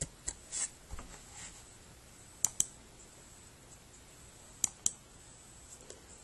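Computer mouse clicks: a few soft clicks in the first second, then two sharp pairs of clicks, about 2.5 s and 4.7 s in, as the slides are advanced.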